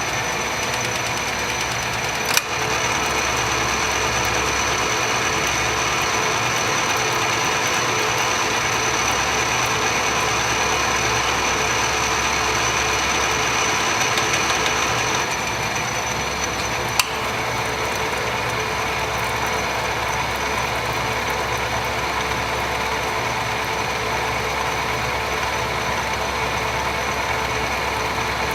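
Hardinge HLV-BK toolroom lathe running under power: a steady mechanical hum with a high whine. There is a sharp click about two seconds in and another about seventeen seconds in, and the high whine weakens slightly about fifteen seconds in.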